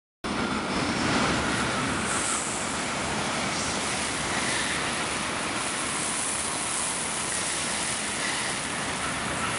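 Shinkansen bullet train passing close by at speed through a station: a steady rushing noise of air and wheels on rail, cutting in abruptly at the start.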